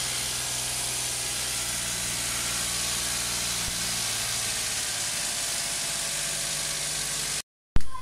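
Suzuki Lapin HE21S's K6A three-cylinder engine idling steadily with a strong hiss-like noise over the engine note, which the owner puts down to a water pump whose shaft has axial play. The sound cuts off abruptly near the end, and a loud sudden sound follows.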